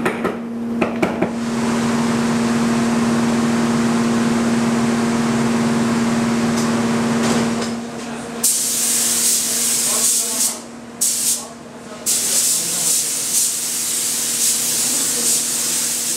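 A few knocks, then a machine humming steadily with a low tone for several seconds before stopping. Then a compressed-air spray gun hisses in long bursts, with two short breaks, as it sprays a wooden frame.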